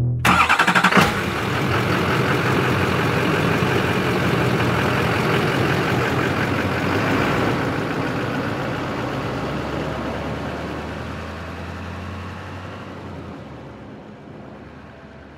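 Heavy truck engine running. It starts abruptly with a brief flutter, holds steady, then fades gradually over the last several seconds.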